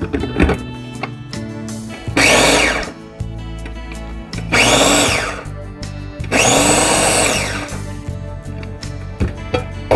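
Food chopper run in three short whirring pulses, its blades coarsely crushing soaked moong dal, each pulse spinning up and winding down. Background music plays throughout.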